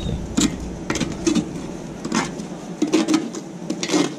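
Metal tongs scraping and clinking through low, ash-covered charcoal in a grill as the coals are moved around, a run of short, irregular scrapes and clatters.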